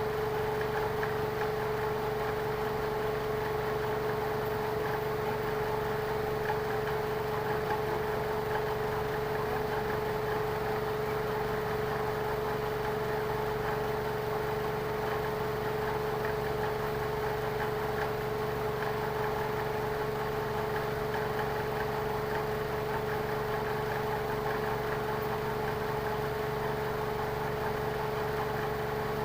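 A motor running steadily at one speed, with a constant mid-pitched whine over a low hum.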